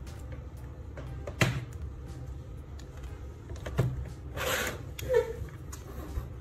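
Tabletop handling noises: two sharp knocks as a soldering iron and its cord are moved, then a short scrape and click as its plug is pushed into a power strip.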